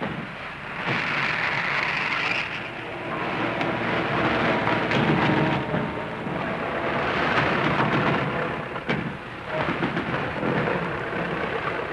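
Heavy, steady rumble of engines and surf that swells and eases, with a sharp crack about nine seconds in.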